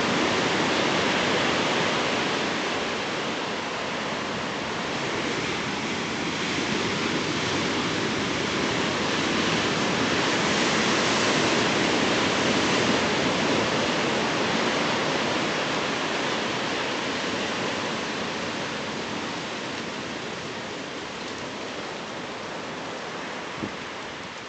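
Ocean surf breaking on a rocky beach: a steady rushing wash that swells a little in the middle and slowly fades toward the end.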